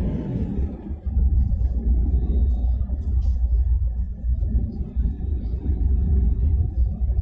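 Steady low rumble of engine and road noise inside the cabin of a moving car.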